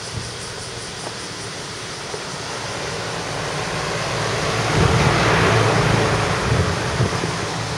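A vehicle passing close by: a rushing noise with a low rumble swells up to a peak about five seconds in, then eases off.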